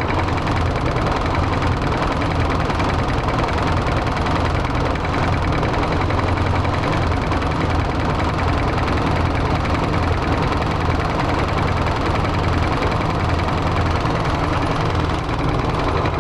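ZIL Bychok truck's four-cylinder diesel engine running steadily and loudly just after new injector nozzles were fitted, with air still in the injector lines, which is expected to make it misfire on one cylinder until the air is purged.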